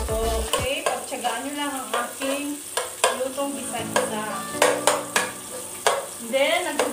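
Garlic sautéing in hot oil in a pot, sizzling as it is stirred with a metal spoon, with a few sharp clinks of the spoon against the pot in the second half. The garlic is turning brown.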